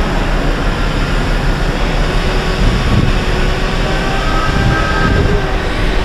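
Steady low rumble of wind and handling noise on a handheld camera's microphone while walking.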